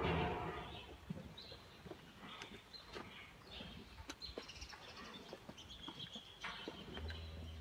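Cattle-shed ambience: scattered clicks and knocks from Holstein cows standing and shuffling at a feed rail, with faint bird chirps.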